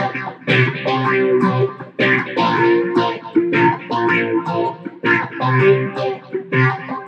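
Intro music: an electric ukulele strumming and picking chords in a quick, steady rhythm.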